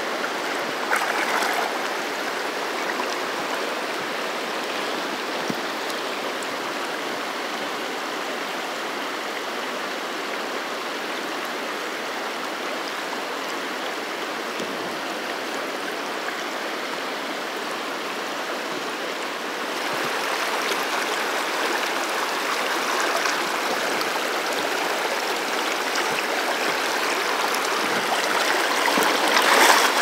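River water rushing and splashing over rocks in a shallow riffle, a steady noise that grows louder about two-thirds of the way through.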